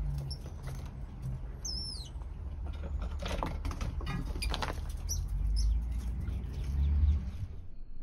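Squirrels running and scrabbling across rubber mats during a chase, a run of light patters and scratches through the middle, over a steady low rumble. A short wavering chirp comes about two seconds in, and the sound cuts off sharply just before the end.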